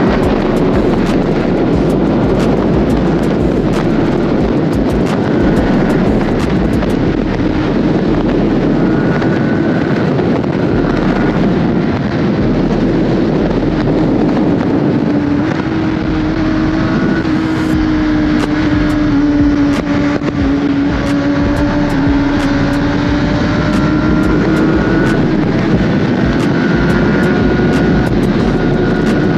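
Sport motorcycle's inline-four engine running at a steady cruise under heavy wind rush, its pitch easing down slightly about halfway through and climbing back.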